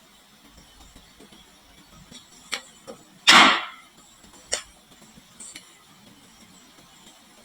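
Marbles on a wooden marble-run slope: a few separate sharp clicks and one louder, short clatter a little over three seconds in.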